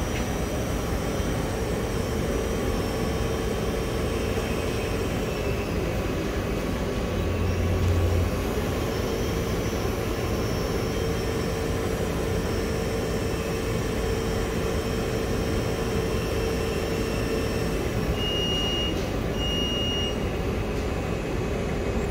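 Cotton candy vending machine running while it spins floss onto a stick: a steady motor hum and whine over a rumbling background, with two short high beeps near the end.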